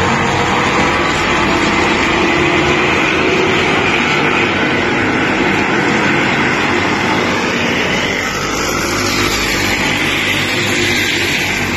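Engines of a pack of Power Stock class race cars running at speed, a loud steady drone of several engines together.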